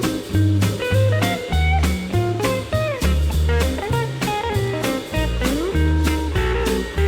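Background music: blues-style guitar with bending notes over bass and a steady drum beat.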